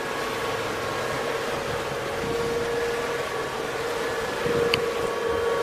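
Hybrid electric boat's drive running under way: a steady hum on one main tone with fainter higher tones, over a constant rush of noise from the hull and water. A brief high tick comes near the end.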